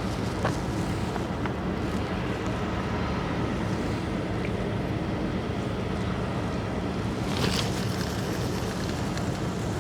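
Wind buffeting the microphone over a steady low hum, with a short rushing sound about seven and a half seconds in.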